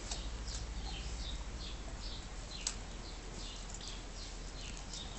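Small birds chirping: many short, quick, falling high notes, a few each second, over a low steady hum, with a single sharp click a little past halfway.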